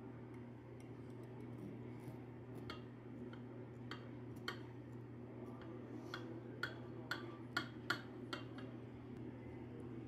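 Metal fork and knife clicking against a plate while cutting through a soft soufflé pancake: a scattered run of light ticks that grows thicker and louder about two-thirds of the way through, over a steady low hum.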